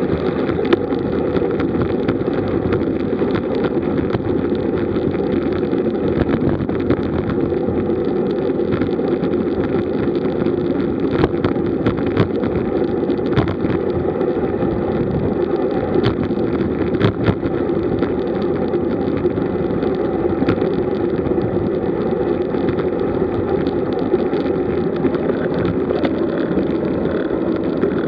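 Steady rushing drone of wind and tyre noise picked up by a camera on a road bike riding at about 35 km/h in a group, with a few short clicks here and there.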